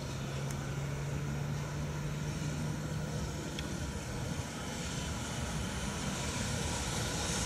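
EF210 electric freight locomotive hauling tank wagons as it approaches: a steady low hum that fades after about three seconds, under a running rumble of wheels on rail that grows louder toward the end.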